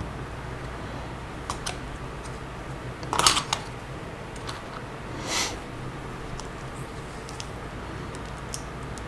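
Plastic LEGO pieces clicking and clattering as they are handled and pressed together: a few light clicks, a louder rattle about three seconds in, and a short rustle about five seconds in, over a low steady hum.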